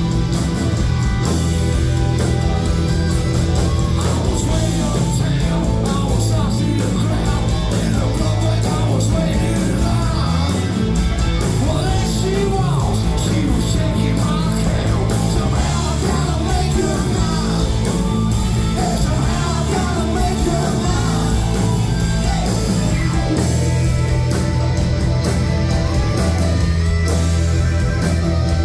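A live rock band playing loudly, with electric guitars, bass and drums, and a lead melody weaving over the top for most of the stretch.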